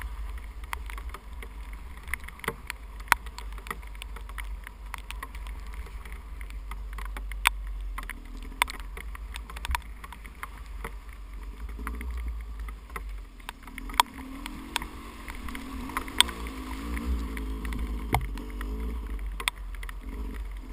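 Wind buffeting the microphone of a helmet camera on a 300cc two-stroke dirt bike, with the engine running muffled underneath, its pitch wavering up and down more clearly in the second half. Scattered sharp clicks and knocks run through it as the bike goes over the rough, wet trail.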